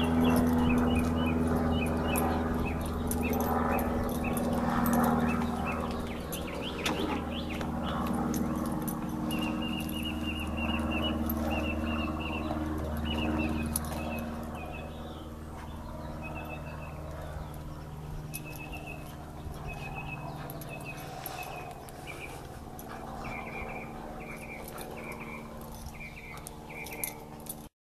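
A Belgian Malinois making low, drawn-out vocal sounds for the first several seconds while rolling and playing with a ball. From about a third of the way in, small birds chirp in short repeated bursts over a steady low hum.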